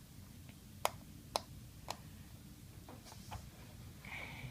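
Light clicks of a small hand tool on the metal shield and screws inside an iPhone 5c: three sharp clicks about half a second apart, then a few fainter ticks.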